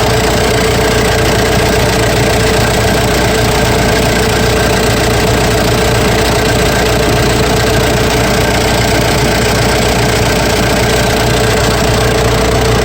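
Cummins B3.3 four-cylinder diesel engine idling steadily with a diesel clatter, just started after a fuel filter change and a bleed of air from the fuel system.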